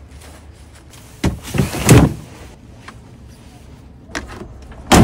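A bagged social tent and gear being loaded into a pickup truck bed: a sharp knock about a second in, then a loud scraping, clattering slide that peaks just before two seconds, and another sharp bang near the end.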